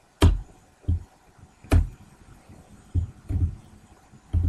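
A series of about six irregular low thumps, two of them with a sharp click on top.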